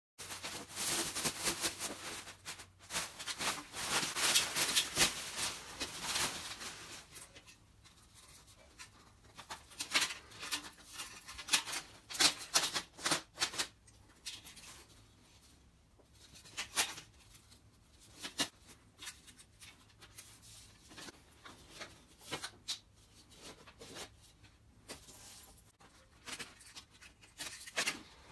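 Plastic packaging rustling and crinkling, dense for the first six seconds or so, then in short scattered spells of handling noise.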